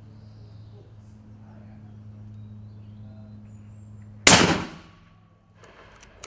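A single shot from a scoped 7mm-08 bolt-action deer rifle about four seconds in: one sharp crack that dies away within about half a second.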